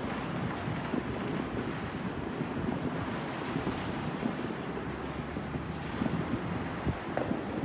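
Distant fireworks and firecrackers going off in a dense, continuous rumble, with many small crackles and pops scattered through it.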